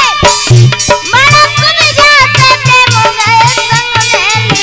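Indian devotional folk music: a dholak drum keeps a steady beat with chimta jingles, under a melody that slides in pitch.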